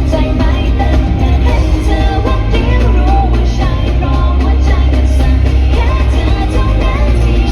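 Loud amplified live pop-rock music with a singing voice over a heavy, steady bass.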